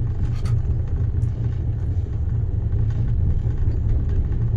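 Steady low rumble of a passenger train running, heard from inside the coach.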